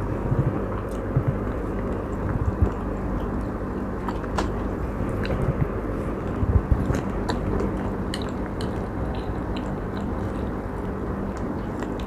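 A person chewing and biting a chicken steak meal, with scattered small clicks from the mouth, over a steady background hum.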